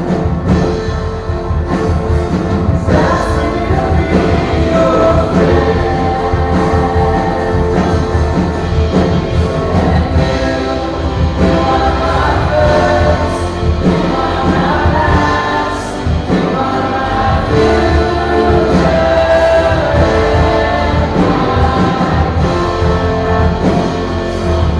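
Live church worship band playing a song, with a lead singer over guitars, keyboard and a steady low beat, and the congregation singing along.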